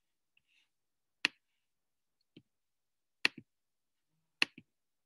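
Computer mouse button clicking: three sharp clicks about a second apart, each followed quickly by a softer click, with a faint tick between them.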